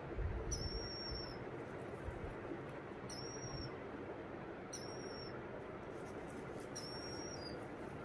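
Green-cheeked conure chicks giving four thin, high squeaks, each about half a second long, a second or two apart, over steady background hiss. There are a few soft handling bumps at the start.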